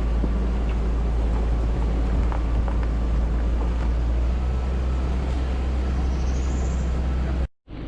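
Vehicle driving along a dirt road, a steady deep rumble with scattered small knocks and rattles. It cuts off suddenly near the end.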